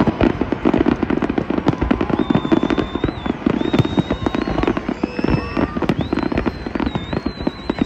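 Aerial fireworks bursting in quick succession: a dense run of bangs and crackles. High whistles sound over them from about two seconds in, one wavering near the end.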